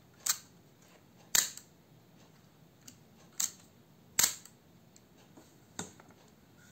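Compur leaf shutter of an Ica Ideal 246 folding plate camera being cocked and fired by hand: five sharp mechanical clicks spread over several seconds, the second and fourth the loudest.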